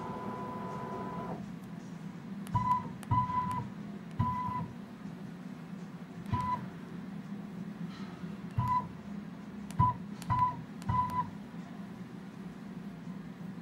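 Electronic key beeps of a DDCS V3.1 standalone CNC controller system as buttons on a homemade wireless remote are pressed: a long steady beep that stops just over a second in, then about nine short beeps at irregular intervals, each opening with a soft button click. A low steady hum runs underneath.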